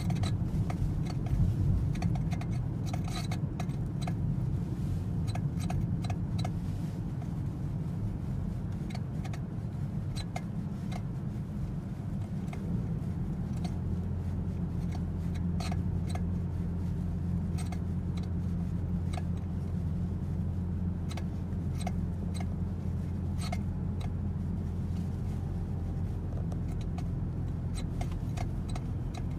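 Toyota C-HR steering giving an abnormal squeak: short 'kyu-kyu' squeaks repeat irregularly over the car's steady low drone.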